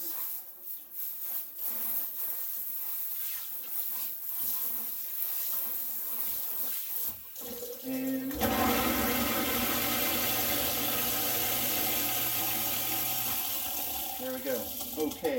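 Kitchen faucet water running into a stainless steel sink, first as spray from the pull-down head and then as a single stream. About eight seconds in, the rushing gets louder as a garbage disposal starts with a steady low hum, running for about five seconds.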